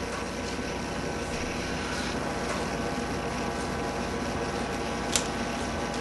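Steady background hum and hiss of a room, with one short sharp click about five seconds in.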